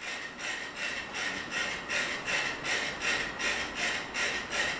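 A few dozen mechanical metronomes on a shared platform ticking almost in unison, about four clicks a second: the metronomes have synchronised.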